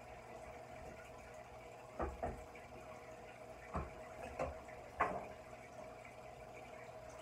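Aquarium filter running, with a steady trickle of water and a hum. Five soft thumps land between about two and five seconds in.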